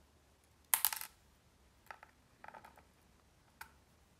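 Small metal lock parts clinking against one another as they are handled: a quick cluster of clinks about a second in, then a few lighter clicks over the next few seconds.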